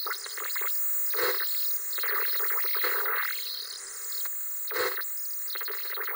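Static-like electronic hiss, as from an old analog TV, with sweeping whooshes and crackling glitch bursts; louder bursts come about a second in, near three seconds and near five seconds.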